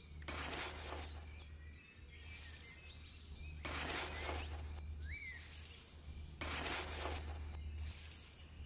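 Outdoor ambience: a steady low rumble with swells of hiss coming and going, and a single short bird chirp about five seconds in.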